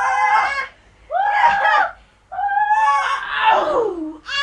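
Children screaming during rough play: three high-pitched screams, the third the longest, falling in pitch at its end.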